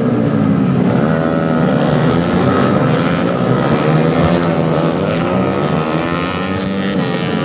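Several racing motorcycle engines revving and passing at once, their pitches rising and falling over one another.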